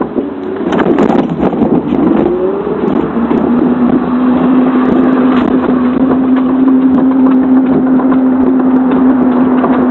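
Electric mobility scooter's motor whining as it rides, its pitch gliding up and down at first, then holding one steady tone from about three seconds in. Cloth rubs and scrapes over the phone's microphone throughout.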